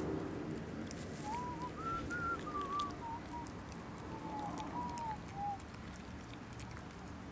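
A person whistling a short, wandering run of soft notes, first rising and then falling back, for about four seconds.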